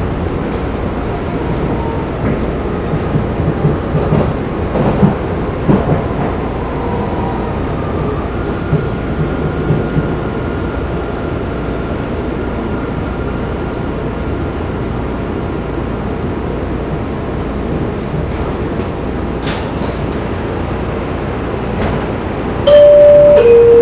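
MBTA Blue Line Type 4 subway car running on the track: a steady rumble with a few clicks and knocks in the first half. Near the end, a loud two-tone chime steps down in pitch and holds, the chime before an automated station announcement.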